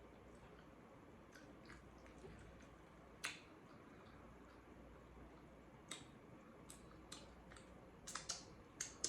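Quiet eating sounds: a few sharp mouth clicks and smacks, with a cluster near the end, over a low steady room hum.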